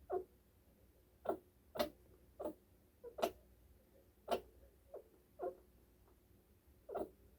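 A chinchilla hiccuping: about ten short, sharp hiccups at uneven intervals, roughly one every half second to a second and a half.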